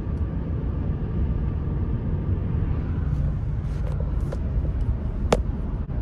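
Steady road and engine rumble heard inside a moving camper van cruising along a highway. A single sharp click comes about five seconds in.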